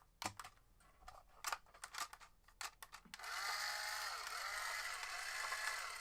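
A few small plastic clicks from the switch and controller buttons, then, about three seconds in, the little electric motor and plastic gears of a 6-inch toy RC car whir for nearly three seconds with a wavering pitch, stopping shortly before the end.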